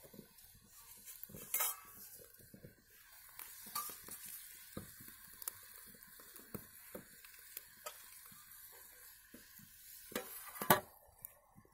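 Chicken sizzling in a steel kadai over a wood fire: a steady hiss with scattered small pops. Near the end there is one loud metallic clatter, as a steel lid is put on the pan.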